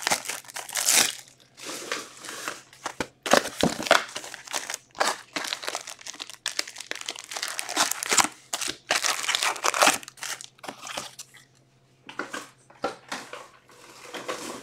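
Foil-wrapped Topps Chrome Update trading card packs crinkling as they are handled, pulled from the hobby box and set down in stacks: a quick run of irregular rustles and crackles that thins out near the end.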